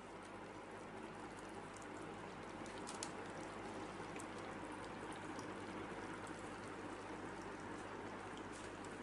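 A litter of whippet puppies eating together: a steady wet crackle of many mouths lapping and chewing at once, scattered with small clicks, and paws shuffling on newspaper.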